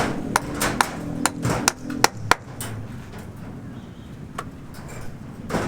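A quick, irregular run of sharp knocks, about a dozen in the first two and a half seconds, then a few more spaced out, over a low steady hum.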